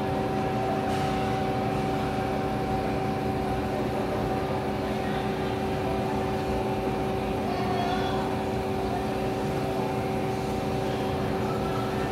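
Steady machine hum of supermarket refrigerated display cases and air handling: a few constant tones over an even rushing hiss, unchanging throughout.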